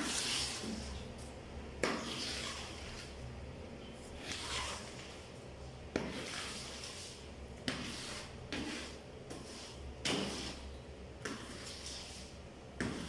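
Floor squeegee pushed in strokes over a wet tiled floor: each stroke starts with a knock as the head is set down, then a wet swish, repeating about every two seconds. A steady low hum runs underneath.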